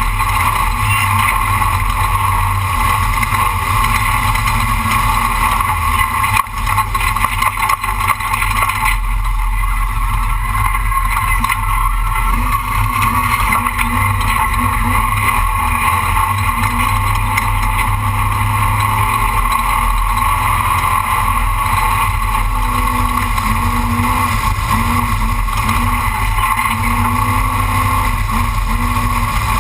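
Class 1450 off-road race truck running under way, a loud, steady engine and road drone with no break.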